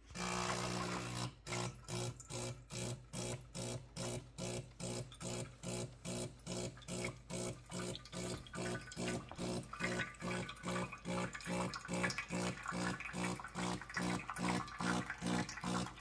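De'Longhi PrimaDonna S bean-to-cup espresso machine running its start-up rinse cycle: the pump hums in rapid pulses, about three or four a second, as hot water spurts from the spout into a jug. It starts suddenly at the beginning, and the water spray gets hissier in the second half.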